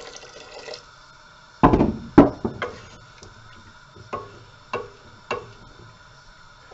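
Water pouring from a jug into a stainless steel stockpot of stew, stopping about a second in. Then two loud knocks, followed by a wooden spoon knocking against the ringing steel pot as the stew is stirred, about three strokes half a second apart.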